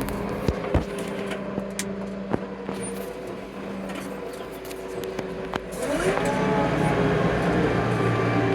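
Tractor diesel engine running, with a few sharp knocks in the first few seconds, then revving up about six seconds in, its pitch rising and the sound getting louder.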